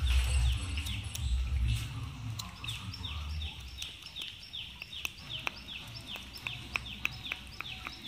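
An animal calling in a steady rhythm, a short falling chirp about three times a second, with scattered sharp ticks. A low rumble runs under it for the first few seconds.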